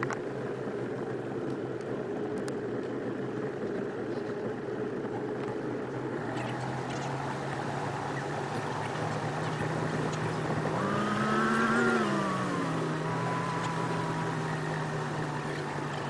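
Mercury Black Max 175 hp V6 two-stroke outboard running steadily at low cruising speed, with water and wind hiss around it. About eleven seconds in the engine revs up briefly and falls back to its steady drone.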